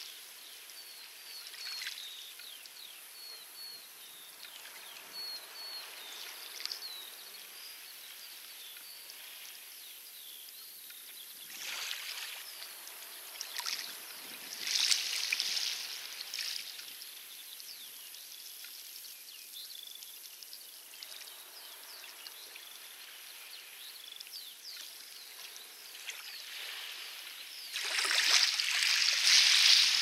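Small waves washing onto a pebble beach in a steady hiss, with louder washes about twelve and fifteen seconds in and the loudest near the end. Faint distant birds chirp in the first several seconds.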